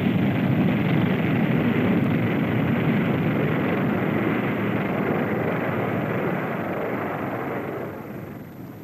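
Jet engines and JATO rocket bottles of a B-47 bomber on a rocket-assisted takeoff: a steady rushing noise that fades away over the last two seconds.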